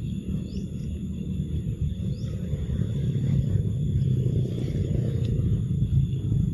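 Outdoor forest ambience dominated by a steady low rumble, with a steady high-pitched insect drone and a couple of short rising chirps above it.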